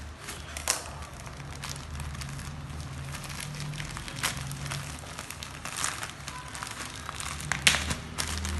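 Plastic courier mailer bag crinkling as it is cut with scissors and pulled open by hand, with scattered sharp crackles, the loudest near the end; a low steady hum runs underneath.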